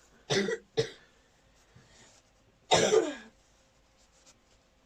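A man coughing: two short coughs near the start, then a louder, longer cough about three seconds in.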